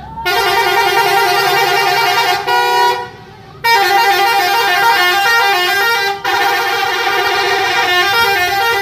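Nafit Trans bus's telolet horn, a multi-tone musical horn, playing a stepping melody in loud blasts. It breaks off about three seconds in, starts again half a second later, and dips briefly once more about six seconds in.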